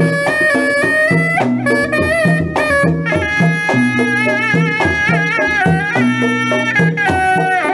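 Traditional music: a reedy wind instrument plays a wavering, ornamented melody over a steady, repeating drum beat.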